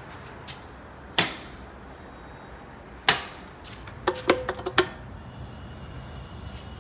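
Sharp clicks and knocks: two single ones, then a quick run of five or six with a faint metallic ring about four seconds in.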